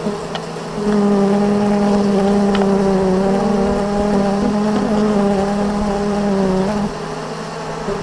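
Honeybees buzzing inside an open hive. A loud, steady buzz with a slight waver starts about a second in and stops suddenly near the seven-second mark, over the lower background hum of the colony.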